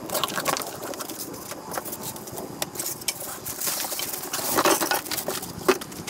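Rustling, clicks and light knocks of objects being handled, busiest about four to five seconds in, with one sharp click near the end.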